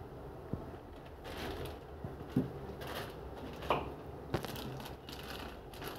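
Plastic wrapping crinkling and rustling as packed mixer grinder parts are handled in a cardboard box with a polystyrene insert, with several sharp light knocks and taps.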